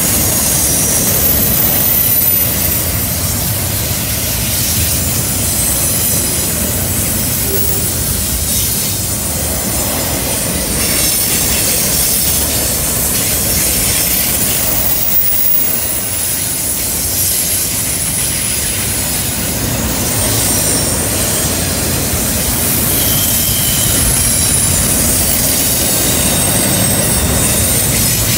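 Double-stack container train of well cars rolling past: steady rumble and clatter of the wheels on the rails, with thin high-pitched wheel-flange squeal from the cars taking the curve.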